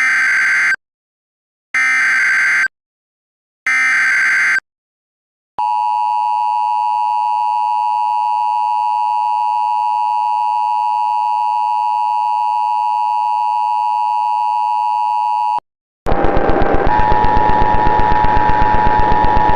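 Emergency Alert System SAME header: three short bursts of warbling data tones, each just under a second, then the EAS two-tone attention signal held steady for about ten seconds. It cuts off, and about sixteen seconds in a harsher, rapidly pulsing noisy buzz with steady tones takes over.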